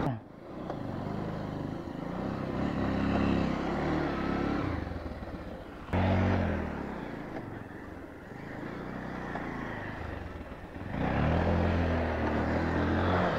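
Motorcycle engine revving hard as the rider spins the rear wheel through tight circles on loose dirt, its pitch rising and falling with the throttle. It surges sharply about six seconds in and again near the end.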